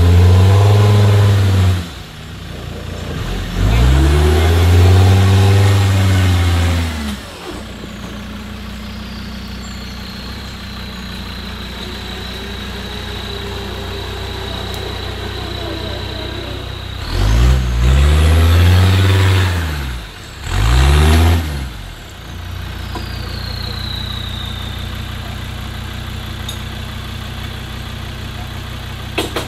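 Off-road challenge vehicle's engine revved hard four times in long bursts, dropping back to a steady idle between them, while the vehicle is stuck under a fallen tree. A thin high whine slowly falls in pitch during the idle stretches.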